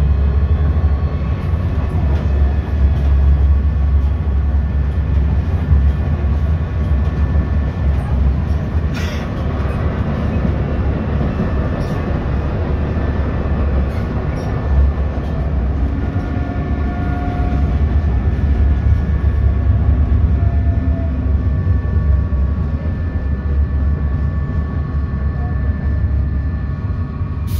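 Interior running noise of a 1988 ASEA M31 articulated tram with thyristor control: a steady low rumble of wheels on rails, with faint steady whining tones above it and a single click about nine seconds in. It grows a little quieter near the end as the tram nears a stop.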